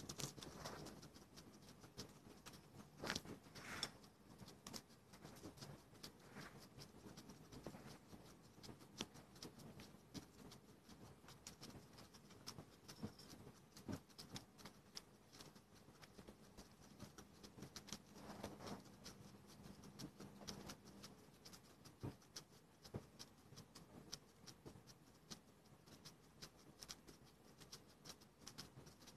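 Guinea pigs crunching dry pellets: quick, irregular small crunches and clicks throughout.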